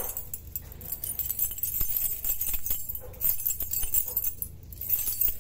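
A bunch of metal keys jangled and shaken, a bright, continuous jingling with light clinks.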